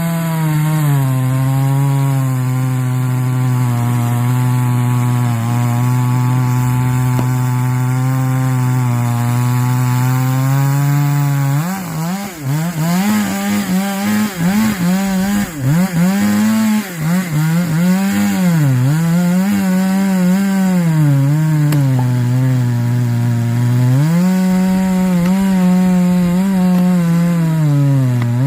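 Chainsaw running at high revs, holding a steady pitch at first. From about twelve seconds in, its pitch repeatedly rises and dips as the chain bites into and works through the wood, until it settles to a steady pitch again near the end.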